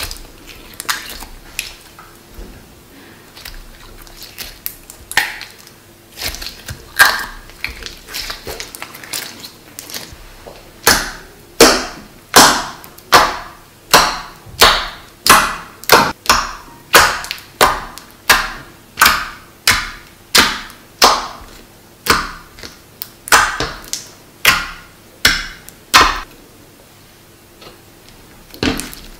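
Clear pink shampoo-and-toothpaste slime being squeezed, stretched and poked by hand, making wet clicks and pops. From about a third of the way in, fingers press into it in a steady run of loud pops, about two a second, which thins out a few seconds before the end.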